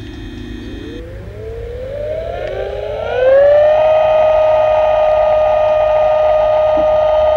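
Electronic science-fiction spaceship sound effect. A low steady hum gives way, about a second in, to a whine that glides up in pitch and then holds as a loud, steady tone from about three seconds in. It stands for the Orion's drive powering up for an alarm start.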